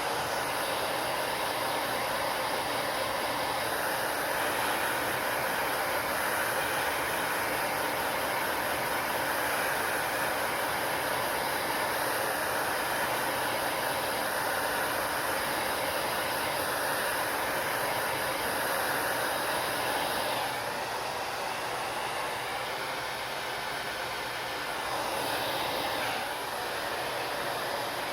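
Hair dryer running steadily, a continuous blowing hiss whose tone shifts a few times. It drops a little about two thirds of the way through.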